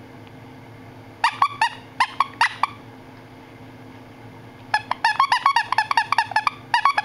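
Squeaker inside a plush teddy bear toy being squeezed over and over: short high squeaks, often in quick pairs, a handful about a second in, then a fast run of them in the last two seconds.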